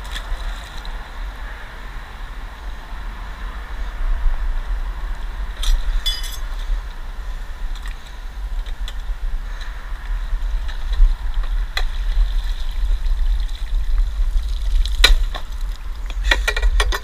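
A metal chair caught on a grappling hook is hauled up by rope, knocking and clanking against a concrete seawall: a couple of knocks about six seconds in, then a quick run of clanks near the end as it comes over the wall. Under it is a steady low rumble.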